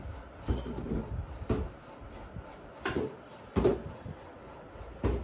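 Balloons being kicked and bouncing on a tiled floor: about six dull, hollow thumps scattered irregularly, the loudest a little over three and a half seconds in.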